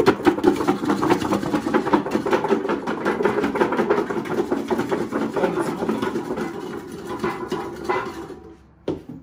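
Raw potato wedges shaken hard inside a covered stainless steel bowl, a fast continuous rattle of potatoes against the metal as they are tossed in oil and smoked paprika. The rattling stops near the end.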